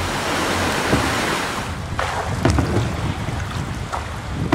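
Steady rush of water and wind noise as a truck ploughs through floodwater. From about two seconds in, a wooden paddle dipping and splashing beside a canoe, with sharp clicks and knocks against the hull.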